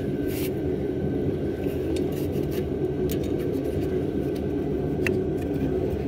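Plastic radiator fan shroud scraping and clicking faintly as it is pressed down into the locking tabs on the radiator, over a steady low background hum.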